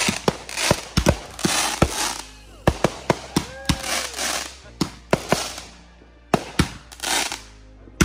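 Consumer fireworks finale cake firing: a quick, irregular series of loud bangs from aerial shells bursting, each followed by crackling, with a brief lull about three quarters of the way through.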